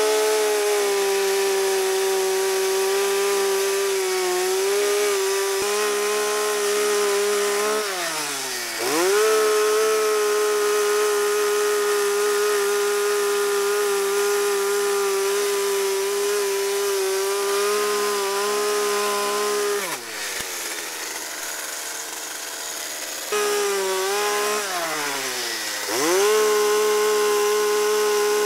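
Small two-stroke gas chainsaw running at full throttle as it cuts through a pecan limb about six inches thick. The engine pitch sags and recovers about a third of the way in, drops lower for a few seconds about two-thirds through, then revs back up to full speed near the end.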